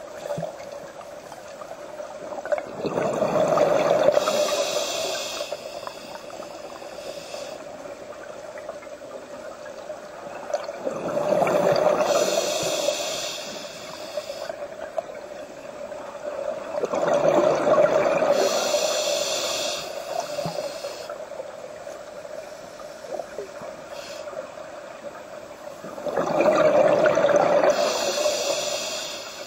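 A scuba diver's regulator releasing exhaled bubbles underwater, four slow breaths in a regular rhythm, each a few seconds of bubbling, over a steady hum.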